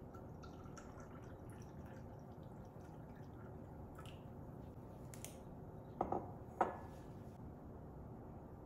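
Two short taps about half a second apart, over a faint steady background hum.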